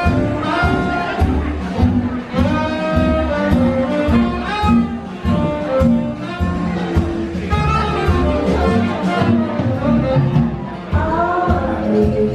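Live jazz band playing: a woman singing and a saxophone over a steady beat.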